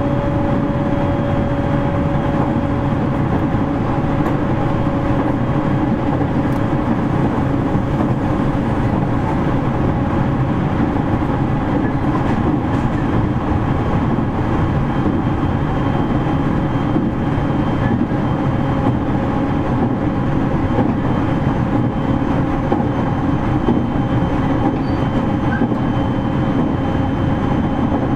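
Running noise inside JR East 701 series electric train car KuMoHa 701-1510, cruising steadily between stations. A continuous rumble of wheels on rail carries a faint steady motor whine, with no change in speed.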